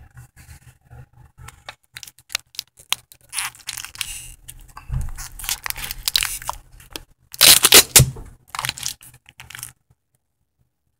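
Handling noise from a plastic action figure and its small accessories being handled on a tabletop: scattered plastic clicks and rustles, loudest in a rough scraping burst about 7.5 seconds in. The sound cuts off to dead silence about a second before the end.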